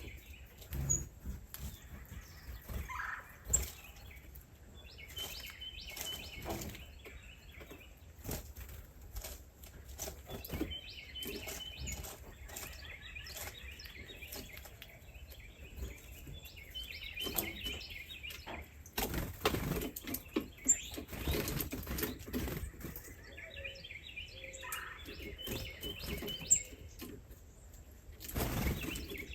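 Small birds chirping in clusters of rapid high chirps that recur every five or six seconds, with frequent clicks and rustling and two louder rushes of noise near the end.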